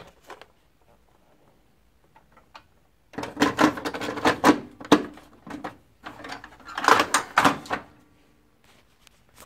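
Plastic clicking and clattering in two bouts, starting about three and six seconds in, as a toner cartridge is pushed into a Lexmark MS510 laser printer and its front cover is shut. A faint steady hum runs under the clatter.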